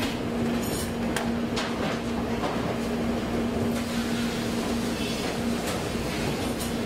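Restaurant kitchen background noise: a steady machine hum from kitchen equipment, with a few short clicks and clatters about a second in.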